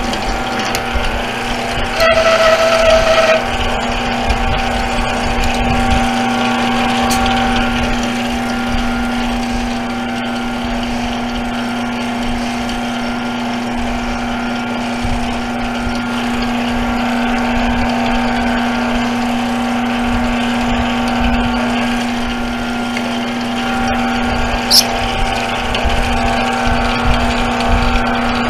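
8x12 mini metal lathe running steadily, its motor and gearing giving a constant hum-whine. About two seconds in, a louder, higher ringing squeal sounds for about a second, and a short high chirp comes near the end.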